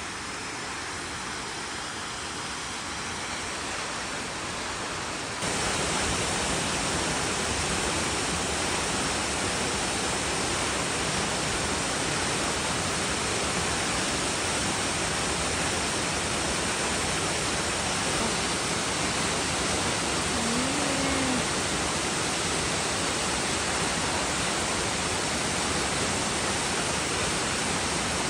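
Steady rushing noise of a 50 m plunge waterfall, its water pouring down and splashing, getting louder about five seconds in.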